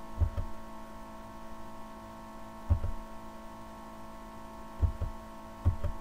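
Steady electrical hum on the recording, with a few soft, low thumps spaced out across it.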